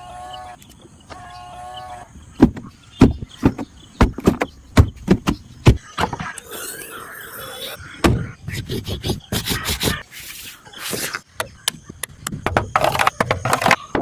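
A string of Tata Tiago NRG car sounds: two short beeps, then a run of sharp clicks and knocks, with bursts of hiss in between and more knocks near the end.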